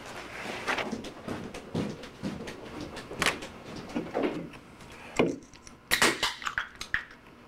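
Scattered knocks and bumps, then about six seconds in a quick cluster of sharp metallic clicks as an aluminium drink can is cracked open.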